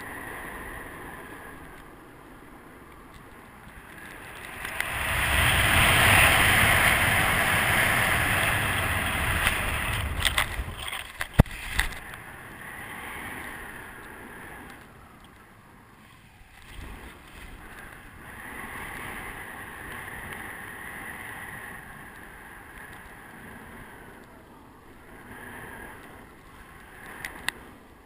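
Airflow rushing over the microphone of a camera mounted on an acrobatic paraglider. It swells loud from about five seconds in as the wing picks up speed in a manoeuvre, then eases back to a lower rush around eleven seconds in. A few sharp clicks come near the loud peak.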